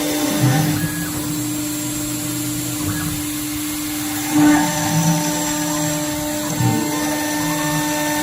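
CNC router spindle running and milling aluminium, a steady whine with a shifting lower cutting noise and a few brief louder moments around the middle.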